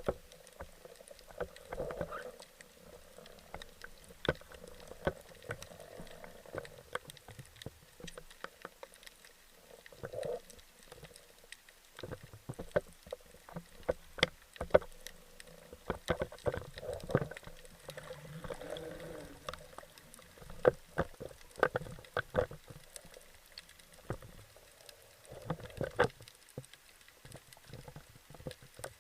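Underwater ambience picked up through an action camera's waterproof housing: scattered sharp clicks and crackles throughout, with occasional muffled swells of water movement.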